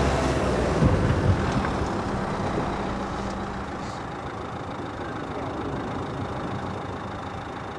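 Car engine running as a car pulls in and idles, with a steady rumble that slowly gets quieter and a couple of brief louder knocks about a second in.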